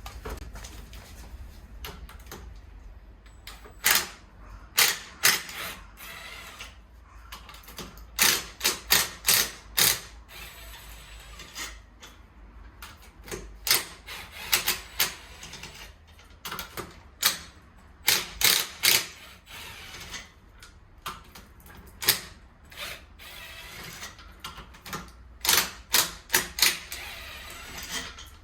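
Ratchet wrench clicking in short bursts of a few sharp strokes, repeated many times with pauses between.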